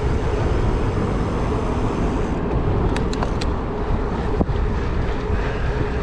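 Wind rushing over the microphone while the gravel bike is ridden, a loud, steady rumble with a faint hum running through it. A few sharp clicks come around three seconds in, and another a little after four seconds.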